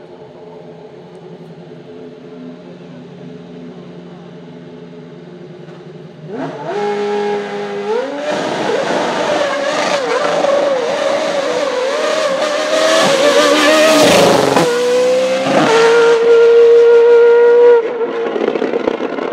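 Formula Renault 3.5 V8 race engine idling steadily. About six seconds in it is revved up hard and held at high revs with tyre noise as the car does a burnout. The revs waver and dip twice briefly, then hold on one steady high note, and after a sudden drop near the end the engine is heard less loud.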